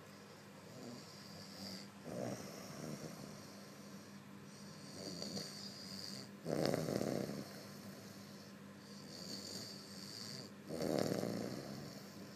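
A man snoring in his sleep: loud snores about every four seconds, the strongest about six and a half seconds in and near the end, with a high hissing breath between them.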